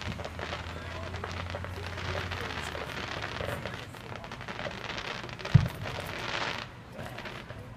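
Distant fireworks: a steady crackling of bursting shells, with one sharp boom about five and a half seconds in.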